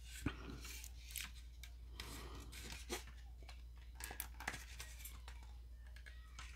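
Faint, irregular small clicks and light rubbing from the articulated wing joints of a sixth-scale action figure being moved by hand, over a low steady hum.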